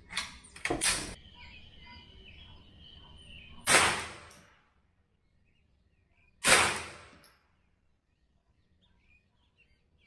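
Two .22 LR subsonic rifle shots from a CBC 7022 semi-automatic rifle, about three seconds apart, each a sharp report with a short fading tail. A few sharp clicks and knocks come in the first second.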